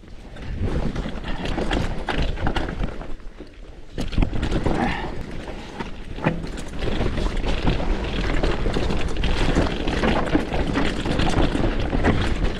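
Mountain bike rattling over wet rocks and roots on a fast descent: a constant run of knocks and clatter from the wheels and frame. Wind rushes on the microphone throughout.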